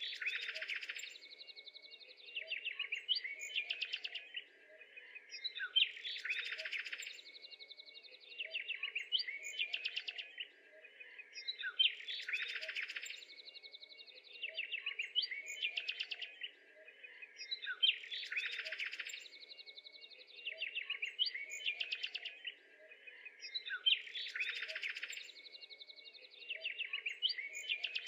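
Birds chirping and twittering, a looped recording whose phrase repeats about every six seconds.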